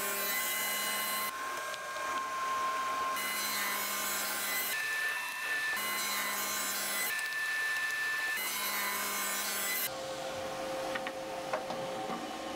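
Table saw running and cutting a groove into a board of ash in several passes, the cutting noise changing abruptly every second or two. Near the end the cutting stops, leaving a quieter running tone and a few light knocks as the board is handled on the saw table.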